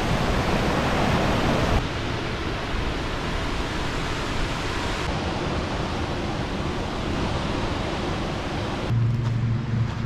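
Steady rush of water from a large waterfall. Near the end the rushing drops back and a low steady hum comes in.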